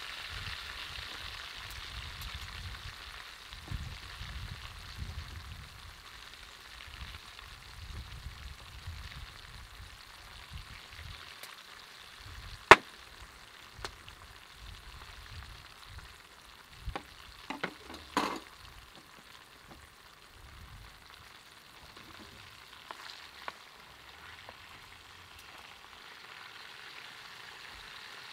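Olive oil sizzling in a pan of ajillo, the sizzle slowly easing off. About halfway through comes a single sharp click, and a few seconds later a short cluster of knocks.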